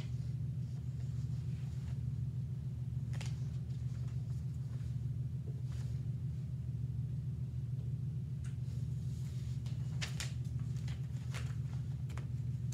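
Quiet room tone: a steady low mechanical hum, with a few faint paper rustles and clicks as sheets are handled, several of them about ten seconds in.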